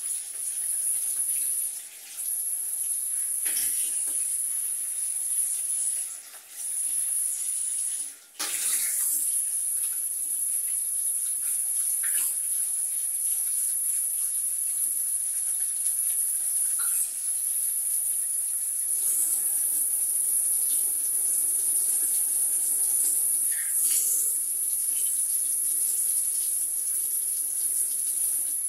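Warm water running from a bathtub's hand shower while a kitten is rinsed: a steady hiss that breaks off briefly three times in the first eight seconds, then runs on unbroken.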